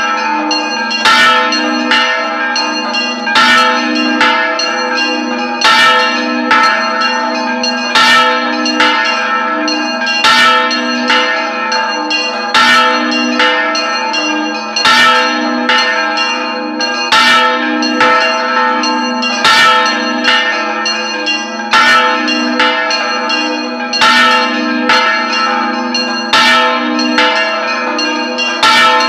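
Large bronze church bell swung full circle on a counterweighted yoke (rung 'al vuelo'), its clapper striking about once a second, alternately louder and softer strokes, over a continuous ringing hum.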